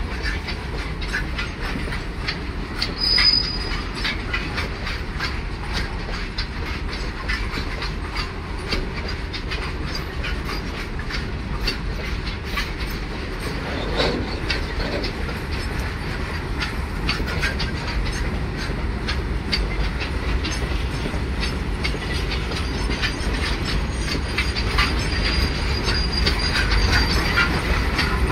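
Open steel BOXNHL freight wagons rolling past close by, a steady rumble with the clickety-clack of wheels over rail joints. A short, high wheel squeal comes about three seconds in, and a fainter squeal near the end.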